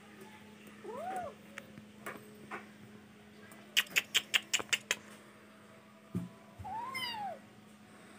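Ginger kitten meowing twice, each a thin mew that rises and then falls in pitch: one about a second in, one near the end. In between comes a quick run of about seven sharp clicks, louder than the mews.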